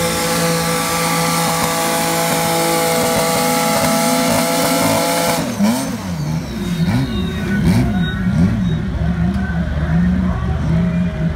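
Modified garden pulling tractor's engine held at high, steady revs under full load while pulling a sled. About five and a half seconds in the throttle is cut and the engine drops to lower revs that rise and fall unevenly as the pull ends.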